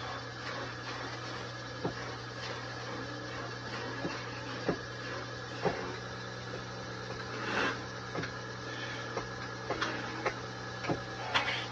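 Wood lathe running with a steady motor hum while a hand-held turning chisel scrapes and cuts the spinning wooden blank of a molinillo. Sharp ticks come every second or so where the blade bites, with two longer scraping swells, one about midway and one near the end.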